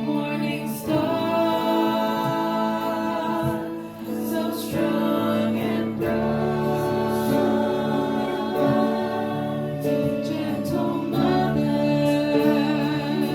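Choir singing a Marian hymn with musical accompaniment.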